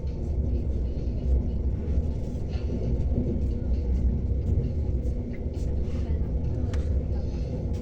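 Steady low rumble of a moving electric passenger train, heard from inside the carriage, with occasional light clicks.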